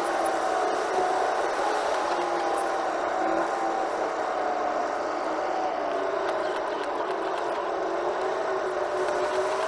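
Car driving at speed, heard from inside the cabin: steady road and running noise with a whine that drifts slowly up and down in pitch.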